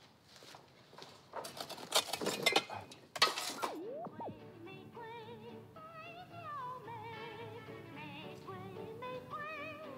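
Old tube radio being tuned: bursts of static and a whistling sweep up and down, then a station comes in with a singer holding long, wavering vibrato notes.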